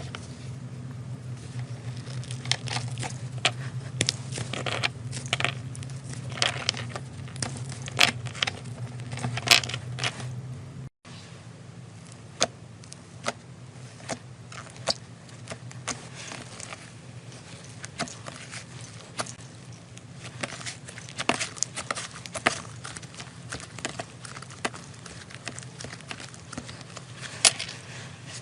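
Slime being squeezed and worked by hand, making many irregular sharp crackling pops and clicks.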